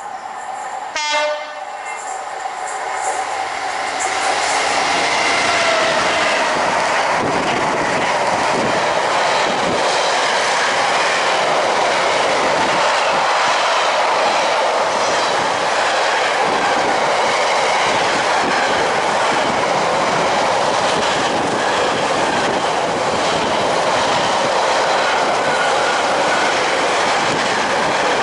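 Container freight train passing close by: a short horn blast about a second in as it approaches, then loud, steady wheel and wagon noise as the container flats run past.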